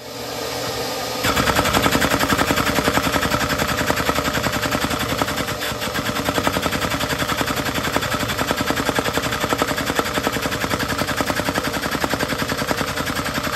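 Lego single-cylinder DOHC vacuum engine running on the suction of a vacuum hose: a rapid, even clatter of plastic parts over the steady rush of the vacuum. The clatter starts about a second in.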